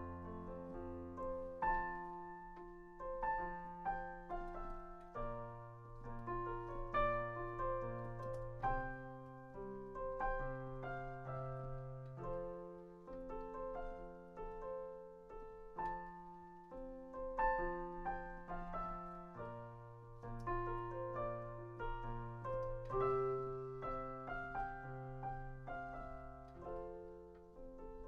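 Solo piano playing an instrumental break between the verses of a folk song, with chords over held bass notes.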